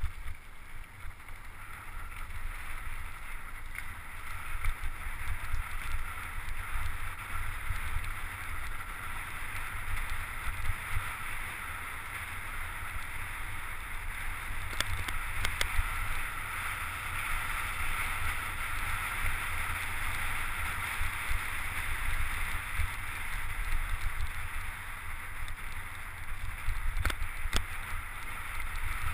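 Wind buffeting an action camera's microphone while riding a mountain bike fast downhill, as a deep rumble that rises and falls, over the hiss of tyres rolling on a gravel and dirt trail. A few sharp clicks or knocks come from the bike jolting over bumps, about halfway through and again near the end.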